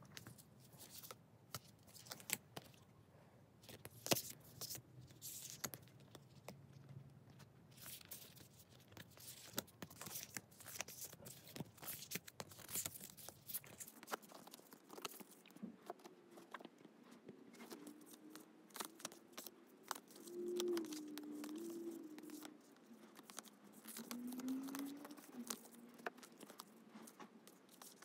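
Glossy photocards being handled: set down and squared into piles on carpet, then slid and flicked one by one through a stack held in the hands, making a run of light clicks and papery scrapes. In the second half a faint wavering hum comes in twice.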